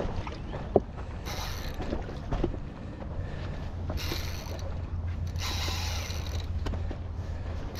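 Daiwa Saltist spinning reel whirring in several short spurts under the pull of a hooked snook, with a sharp click about a second in.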